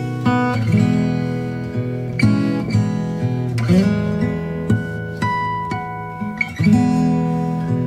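Background music played on acoustic guitar, with no speech.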